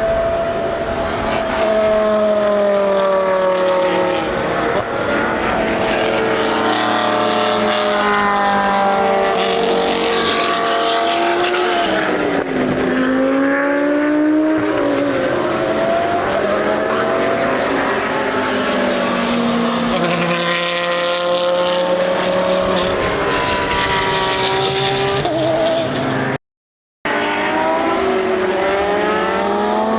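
GT3 racing cars at full race pace, several in succession, their engines revving up and down through the gears and passing with falling pitch. The sound cuts out completely for about half a second near the end.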